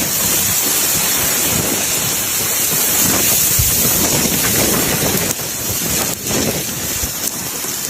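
Wind in a snowstorm blowing on the microphone: a steady, loud hiss with no distinct tone, dipping slightly a few times.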